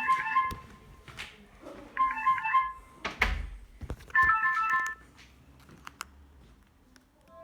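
A Doro 1360 mobile phone's speaker plays three short ringtone melodies in turn, about a second each, as the ringtones are previewed. Clicks and a thump come between them.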